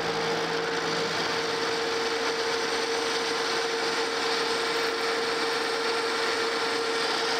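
Monarch Model K metal lathe running at a steady speed with an even hum, while a parting tool cuts a groove into the spinning metal bar stock to part off a nut blank, cutting oil being brushed onto the cut.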